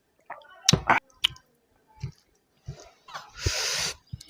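Close-up eating sounds from a mouthful of mutton curry: wet lip smacks and chewing clicks, then about three seconds in a longer hissing breath or slurp lasting nearly a second.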